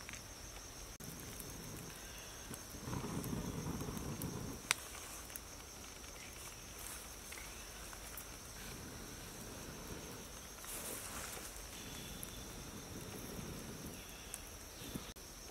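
Breath blown in several soft, rushing puffs onto the embers of a small wood fire to fan it, over a steady high drone of insects, with one sharp click a little under five seconds in.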